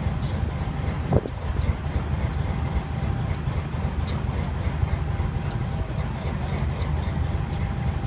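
GE U23B diesel-electric locomotive's 12-cylinder GE 7FDL diesel engine running steadily after its cold start, a low even rumble, with faint sharp clicks now and then.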